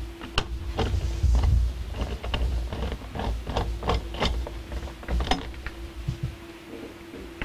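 Scattered clicks and taps of a screwdriver and hands working on a hot tub's plastic control panel housing, over a steady low hum.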